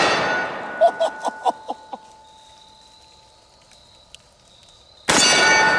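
Smith & Wesson 500 Magnum revolver firing heavy 700-grain hard-cast loads. The blast of a shot fades in the first half-second, followed by a few sharp knocks and a steel target ringing for about two seconds. A second loud shot comes about five seconds in, and the target rings again.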